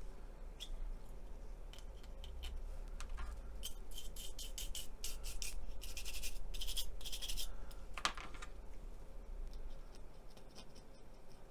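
Small hand tool scratching and scraping paint off a plastic scale-model part, lifting acrylic paint that has been wetted over chipping fluid: a run of short scratching strokes, thickest from about four to seven seconds in.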